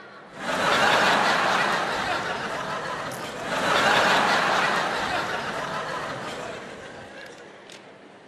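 Audience laughing: a burst of laughter breaks out about half a second in, swells again around four seconds, then dies away.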